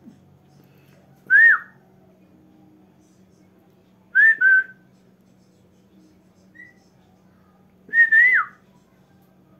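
A woman whistling with pursed lips: three short whistled phrases about three seconds apart, breathy, the first and last ending in a falling note. A much fainter short whistle comes between the second and third.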